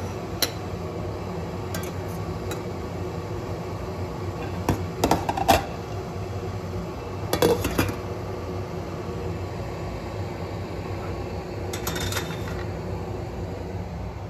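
Dishes and utensils clinking in short clusters over the steady hum of a running kitchen appliance.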